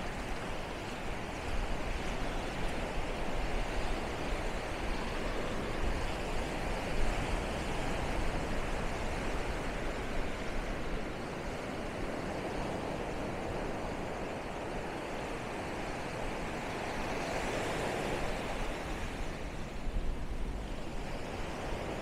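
Small surf breaking and washing up a sandy beach, a steady rushing, with low rumbles of wind on the microphone. A wave swells up brighter and louder near the end.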